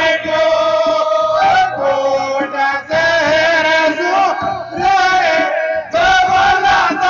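A Hindi devotional jas sung to the Mother Goddess: voices singing long, wavering notes over musical accompaniment.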